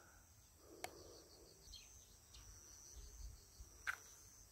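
Near silence: faint rural outdoor ambience with a thin, steady high-pitched insect tone and a couple of small clicks.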